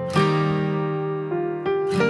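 Background music of acoustic guitar strumming chords, a new chord struck just after the start and another near the end, each ringing out.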